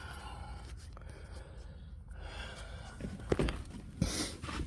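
A few light clicks and handling noises from working a tool at the ignition lock cylinder's release tab in the steering column, with faint breathing; the louder clicks come about three and four seconds in.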